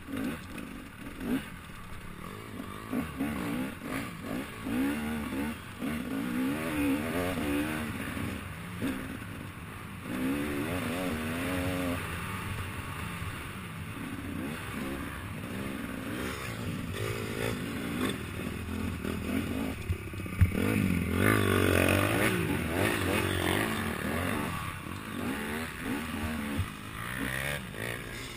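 Enduro motorcycle engine heard on board from the rider's helmet, revving up and down over and over as it is ridden around a dirt track; the revs climb highest about three quarters of the way through.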